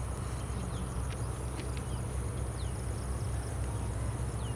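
Outdoor ambience: a steady high insect buzz with several short, falling bird chirps over a steady low rumble.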